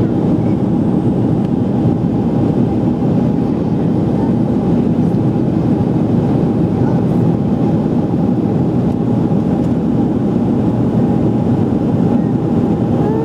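Steady cabin noise of an Enter Air Boeing 737 jet airliner in flight: engine and airflow rumble, with a faint steady tone running through it.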